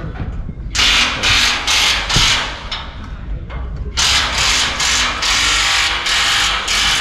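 Power tool tightening fasteners on stage rigging, running in two long spells of surging, rattling noise, the second starting about four seconds in.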